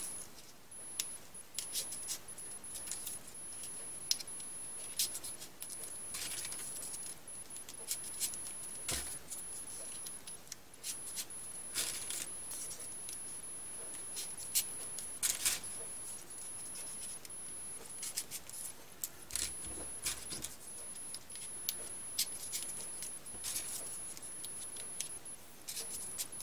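Folded paper triangle units of a modular 3D origami model being pushed onto one another by hand. Irregular crisp rustles and small clicks of paper sliding against paper.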